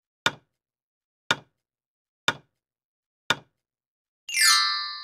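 Countdown timer sound effect ticking once a second, four ticks, then a short chime with a falling sweep near the end as the count runs out.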